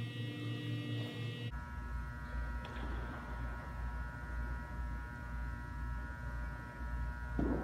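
A steady droning hum made of several sustained tones over a deep low hum, the set of tones shifting once about a second and a half in.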